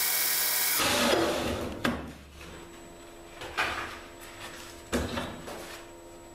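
Belt grinder motor running steadily, cut off abruptly about a second in. Then handling noises on the grinder's metal clamping jig: rubbing and three sharp knocks about a second and a half apart.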